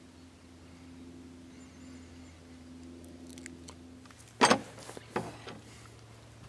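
Steel sliding-bar latch on a wooden gate being worked: a sharp metallic clack about four and a half seconds in, then a second, smaller clack under a second later, over a faint steady hum.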